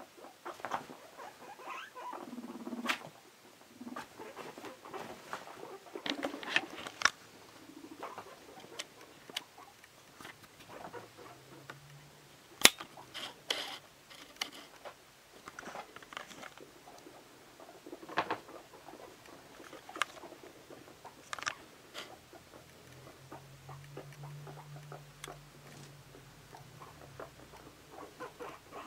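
Guinea pigs scampering and hopping about: an irregular patter of small feet with scattered knocks and thuds, the sharpest knock a little under halfway through.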